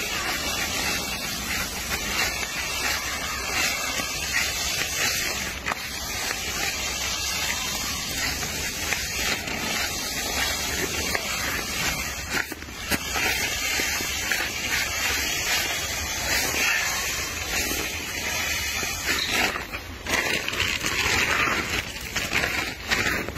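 A steady, even hiss, getting louder and brighter about twenty seconds in.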